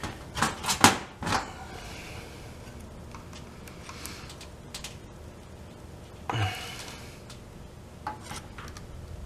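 A plastic motorcycle fuel pump assembly being handled and pried at with pliers to pop a part loose: a few sharp clicks and knocks in the first second and a half, then quieter rubbing and scattered small ticks.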